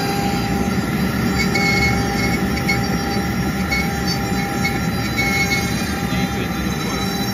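CNC Shark router spindle carving wood with a 2 mm bit, together with a shop vacuum nozzle sucking up the chips at the cut. The result is a steady mix of vacuum rush and spindle whine, with short higher-pitched cutting sounds now and then.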